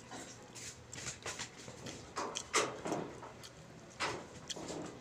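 Close-miked eating of pancit canton noodles: wet slurps and chewing with small clicks. There are two louder slurps, about two and a half and four seconds in.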